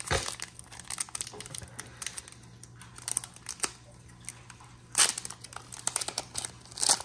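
Foil wrapper of a Pokémon booster pack crinkling and tearing as it is opened by hand, with a louder burst of crinkling about five seconds in.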